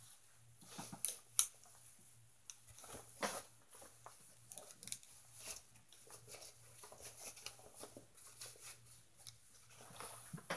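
Rustling of shirts and clicks of plastic clothes hangers as clothes on hangers are handled close to the microphone, in scattered soft bursts with one sharper click about a second and a half in.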